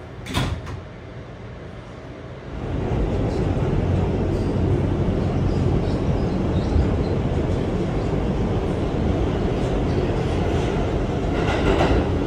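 R211A subway car doors knocking shut about half a second in, then the train pulling away from the station: a steady low rumble of motors and wheels that builds up about two and a half seconds in and holds.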